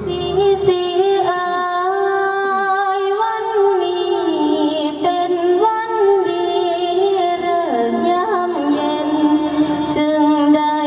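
A woman singing a slow mor lam melody in long held notes that slide and bend between pitches, with music behind her.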